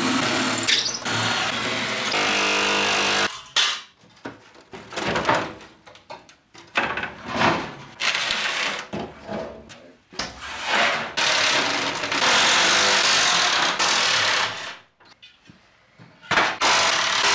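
A cordless drill-driver runs steadily for the first few seconds, undoing fixings on a Land Rover seat box. Then comes an uneven run of metal clanks, scrapes and rattles as the seat box panels are pulled apart and parts are dropped onto the steel bench and into a metal tray.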